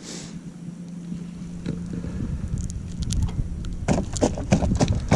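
A steady low hum over a noise bed, then from about four seconds in a quick run of sharp clicks and knocks: handling noise close to the camera as a fresh shrimp is threaded onto a fishhook.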